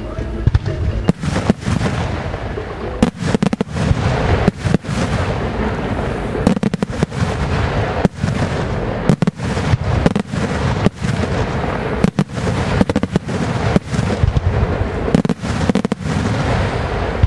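Aerial fireworks shells bursting in a loud, rapid, irregular string of sharp bangs, with a rumble of echo between them.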